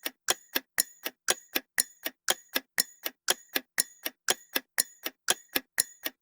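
Ticking clock sound effect used as a quiz countdown timer: sharp, even ticks about four a second.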